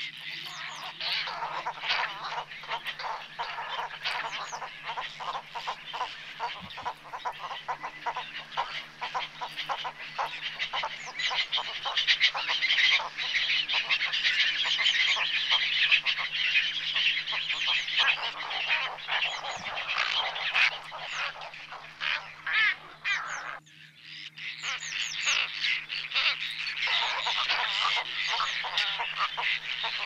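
A large flock of cattle egrets and other waterbirds calling together: a dense chorus of many overlapping short calls, dropping away for a moment about three-quarters of the way through before resuming.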